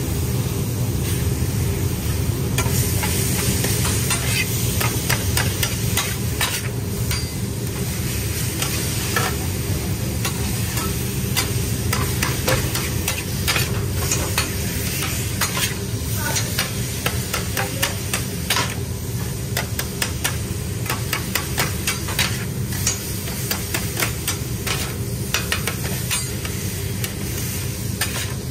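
Chicken sizzling on a flat-top griddle while two metal spatulas chop and scrape it, with many quick clicks and taps of the blades against the steel, over a steady low hum.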